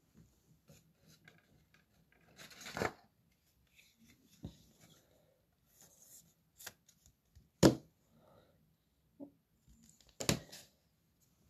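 A trading card slid into a rigid plastic top loader and handled: soft rustling and sliding, with a few sharp plastic clicks and taps, the loudest about two-thirds of the way through.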